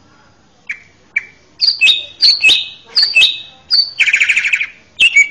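Male greater green leafbird (cucak ijo) singing: two short notes, then a run of loud whistled phrases, each a high note dropping to lower ones, then a fast rattling trill about four seconds in and one more falling whistle near the end.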